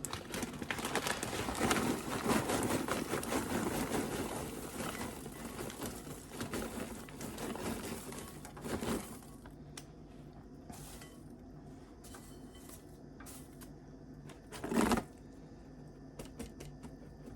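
Paper microwave popcorn bag being handled, crinkling and rustling with popcorn shifting inside, a dense run of small crackles for about nine seconds. Then it goes quieter, with one short rustle near the end.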